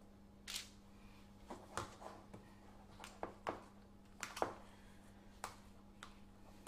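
Light handling noises of food preparation: about ten short knocks and scrapes as a sponge cake is set on a paper-lined metal baking tray and a metal ice cream scoop is worked in a tub of ice cream, over a faint steady hum.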